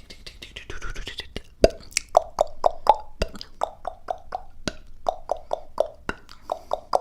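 Close-miked ASMR mouth sounds: after a soft breathy first second or so, a run of wet tongue clicks and mouth pops, each a sharp click with a short hollow ring, about three or four a second.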